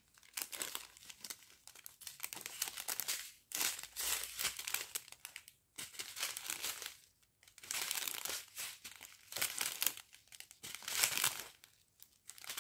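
Thin clear plastic sachets of diamond-painting rhinestones, taped together in a strip, crinkling as they are handled and turned, in irregular spells with short pauses between them.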